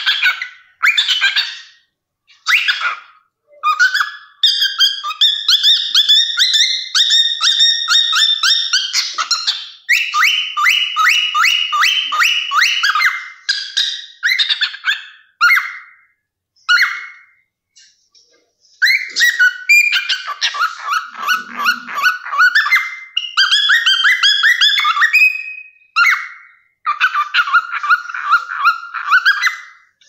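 Cockatiel singing and chattering in bouts of fast warbling phrases, with short pauses between bouts and a longer break a little after halfway.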